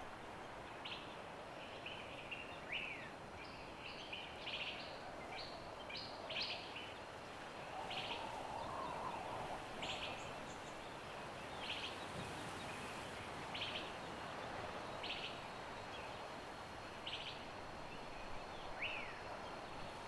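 Faint tropical forest ambience: short, high bird calls repeating every second or two over a steady background hiss, with a couple of quick downward-sliding chirps.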